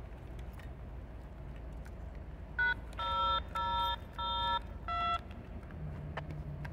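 Five touch-tone (DTMF) dialling beeps from a railroad radio scanner, starting about two and a half seconds in and spaced a little over half a second apart, the first one short. They play over a steady low rumble.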